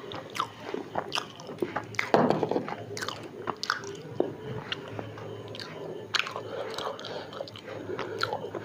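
Close-up chewing of a singara, the Bengali fried pastry with spiced potato filling: repeated crisp crunches and wet mouth clicks, with the loudest crunch about two seconds in.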